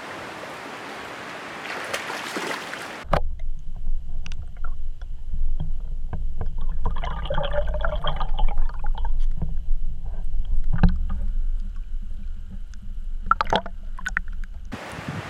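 Wind and water noise on the river bank, then an abrupt cut to underwater audio from a camera in a waterproof housing: a muffled low rumble of moving water with scattered clicks and knocks, busiest around the middle where a pike has the eel lure in its jaws. Near the end it cuts back to open-air wind and water noise.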